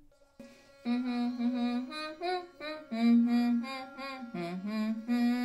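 A woman humming a tune note by note while an electric toothbrush buzzes steadily in her mouth. The humming starts about a second in, and the toothbrush's even drone carries on after it stops near the end.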